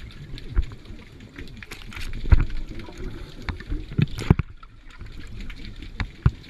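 Underwater sound of a scuba diver's breathing bubbles gurgling. Irregular knocks and bumps come as a sea lion pushes against the camera, the loudest about two and four seconds in.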